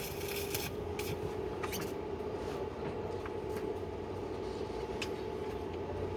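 Steady machine hum holding one tone, with a hiss that cuts off suddenly under a second in, then scattered light clicks and taps.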